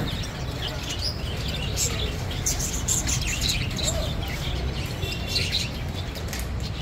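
Many caged budgerigars and finches chirping together: a busy scatter of short, high tweets over a steady low rumble.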